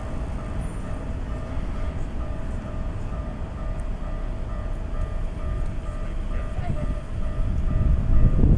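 Japanese railway level-crossing warning bell ringing steadily in a repeating two-pitch pattern. A Keikyu train's rumble builds in the last second as it nears the crossing.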